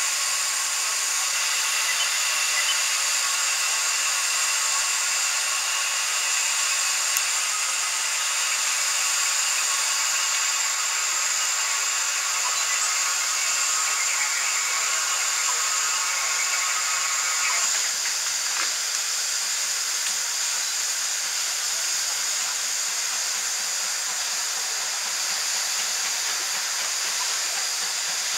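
Steady hiss of escaping steam from a steam locomotive, with faint whistling tones in it that fade out about two-thirds of the way through.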